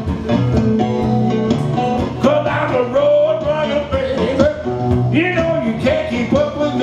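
Live blues music: guitar playing with singing.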